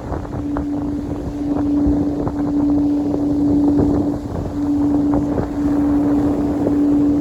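A singing bowl sounding one steady, pure tone, held on with a few brief dips, under heavy wind noise on the microphone.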